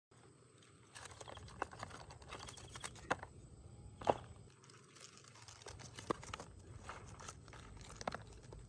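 Cooked crab shells clicking and crackling as the crabs are picked up and handled on a banana leaf: a series of single sharp clicks about a second apart over faint rustling.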